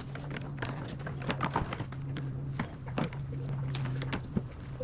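Scattered light clicks and knocks from handling the plastic evap lines and their snap-in fittings on a fuel tank, over a steady low hum.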